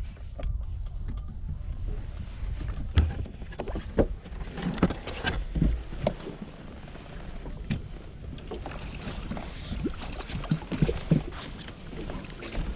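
Wind buffeting the microphone over water lapping and slapping against a small fishing boat's hull, with scattered knocks and clicks from the boat and gear, the sharpest about three seconds in.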